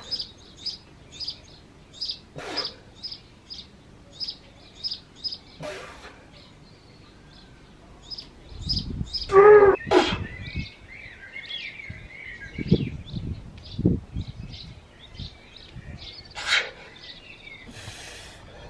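A small bird chirping over and over, short high chirps about twice a second. About halfway through there is a short, loud grunt from the lifter, followed by a few low thuds.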